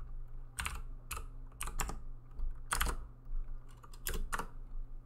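Typing on a computer keyboard: irregular keystrokes, some in quick pairs, with short pauses between them. A faint steady low hum runs beneath.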